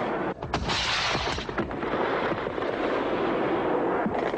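Explosions with a continuous rumbling roar, and sharp blasts about half a second and a second and a half in.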